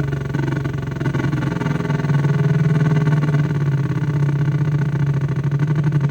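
Loudspeaker giving a steady low buzz with a rapid, even pulsing, a noise that repeats with each rotation.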